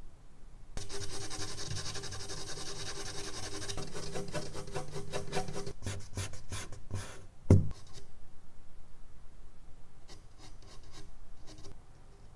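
Eraser rubbing back and forth on medium-surface charcoal drawing paper in fast, dense scrubbing strokes, with a single thump against the drawing board about halfway through and a few lighter strokes on the paper near the end.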